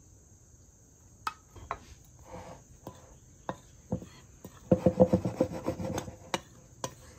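Metal spoon stirring dry seasoned flour in a glass bowl: a few scattered clicks of the spoon against the glass, then about two-thirds in a quick run of scraping and clinking as it mixes hard.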